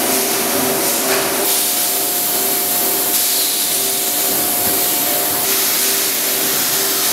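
Automatic filling machine running on an engine-oil bottling line: a steady hissing noise with a hum that pulses about twice a second.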